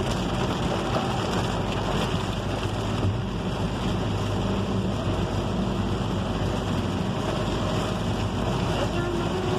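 Steady rush of heavy rain and tyres on a wet road, heard from inside a car's cabin while driving.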